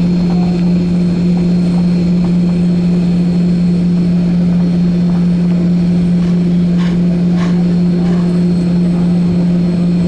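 Steady cabin drone of a Boeing 737-900ER on the ground after landing, heard from inside the cabin: a constant low hum with a steady tone and no change in pitch. A couple of faint clicks about seven seconds in.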